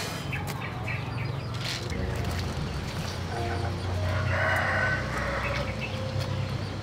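A rooster crows once, about a second long, a little after the middle, amid scattered chicken clucks.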